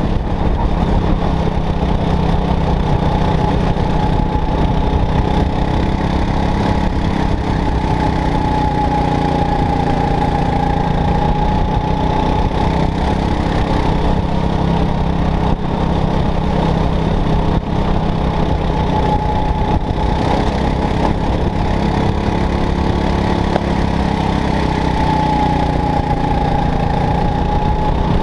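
Go-kart engine running flat out under racing load, heard from on board the kart, its note dipping and rising twice as the driver lifts and accelerates through corners.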